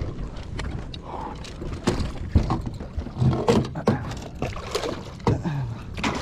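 A hooked bowfin being fought: water splashing with many sharp knocks and clicks from the fishing gear and boat.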